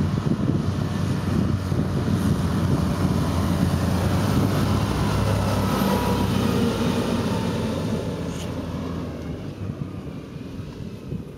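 Case IH tractor's diesel engine pulling a Joskin slurry tanker past at speed: a steady engine drone that is loudest as it goes by about halfway through, with a drop in pitch as it passes, then fading as it pulls away.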